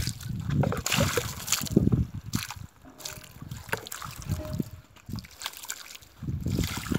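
Water splashing and trickling over stones and concrete in irregular gushes.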